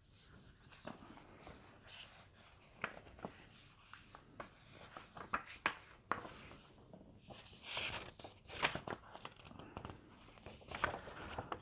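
Book pages being turned and handled: paper rustling with scattered light clicks and knocks.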